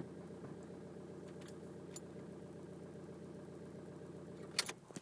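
2004 VW BEW 1.9 TDI Pumpe-Düse diesel engine idling steadily after a warm restart, then a sharp click near the end as the engine shuts off.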